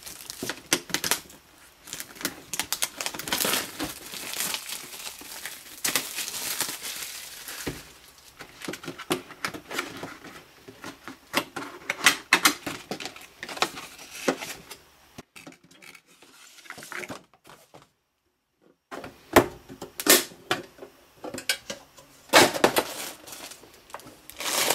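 Clear plastic shrink wrap being torn and crinkled as a boxed gift set is unwrapped, with scattered taps and clicks from handling the cardboard box and a tin lunchbox. The sound breaks off briefly about 18 seconds in, then crinkling of a plastic bag picks up again.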